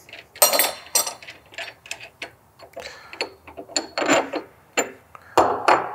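Metallic clicks, clinks and taps as the retaining nut of a REMS Cento pipe cutter's cutter wheel is unscrewed and the cutter wheel is worked off its shaft, with a couple of sharper clinks about five and a half seconds in.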